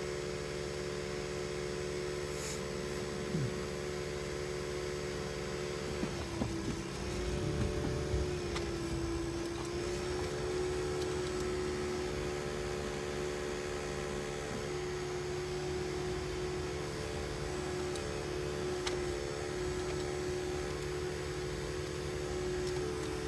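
Steady mechanical hum inside a car's cabin as it idles and creeps forward in slow traffic. About six seconds in, the pitch dips and wobbles briefly and the hum grows slightly louder, then settles back.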